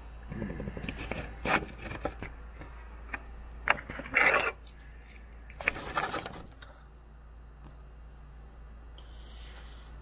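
Handling noise: irregular scraping and rubbing with a few sharp clicks, the loudest scrapes about four and six seconds in, over a steady low hum.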